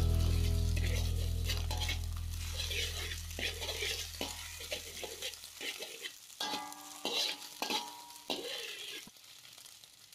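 Scrambled egg sizzling in a metal wok while a metal spatula stirs it, with irregular sharp scrapes and clicks of the spatula against the pan. A sustained musical chord fades out during the first half.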